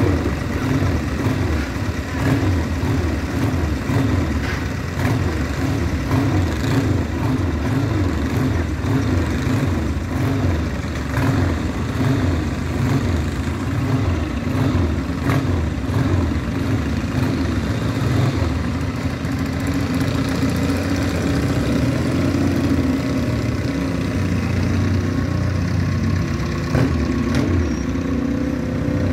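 Vintage tractor's engine running steadily at low revs, with a deep, even beat, as it tows a small trailer slowly past.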